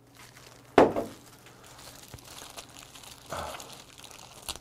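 Crinkling of disposable plastic food gloves as salted napa cabbage leaves are handled, with a brief louder sound about a second in.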